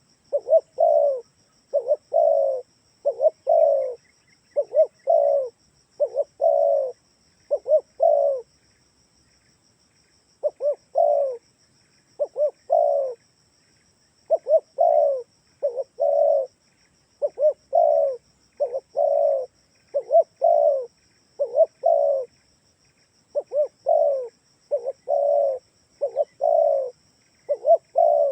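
Spotted dove (tekukur) cooing over and over in short phrases of two or three coos, with one pause of about two seconds about a third of the way in.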